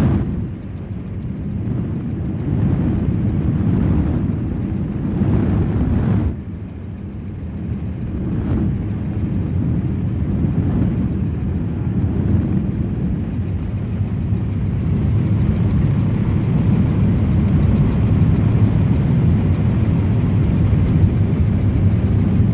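Helicopter cabin noise: a steady low drone from the rotor and engine. It drops suddenly about six seconds in, then slowly builds back up.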